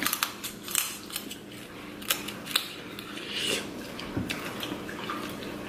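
Close-up eating sounds: irregular sharp clicks, cracks and smacks as seafood-boil food is broken apart and chewed.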